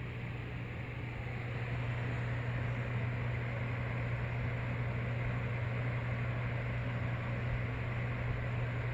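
Steady low hum and airy whir of an electric fan running, a little louder from about a second and a half in.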